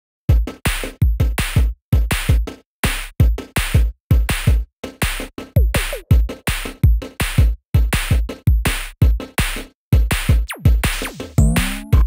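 Electronic background music with a punchy drum-machine beat in steady repeating groups, with a falling pitch sweep and then a rising sweep near the end.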